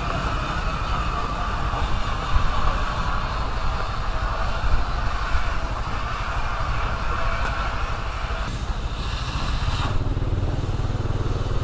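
Motorcycle engine running, heard from the rider's seat; the sound changes near the end.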